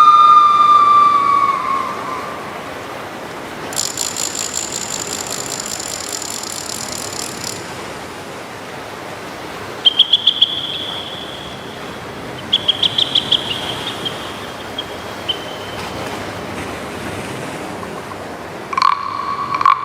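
Foley effects played live over a steady hiss. A whistle fades out with a falling pitch, then a fast high ringing rattle lasts a few seconds. Short high chirps follow in two groups, and a new whistle starts near the end.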